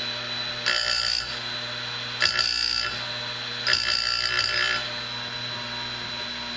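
Oregon 510A chainsaw-chain grinder: its electric motor runs steadily while the abrasive wheel is brought down onto the cutter teeth three times, each a short, high, ringing metallic screech of grinding, the last one longest. It is sharpening a dull chain tooth by tooth; after the third grind only the motor is heard.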